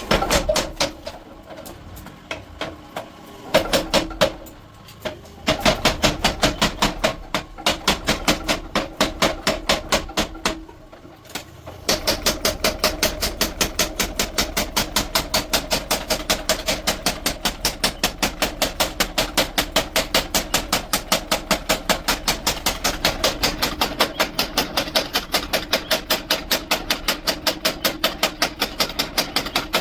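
Hammer blows on steel being forged into a khara blade, each strike ringing. The strikes come in scattered groups at first, then from about twelve seconds in settle into a steady, fast run of even blows, about three a second.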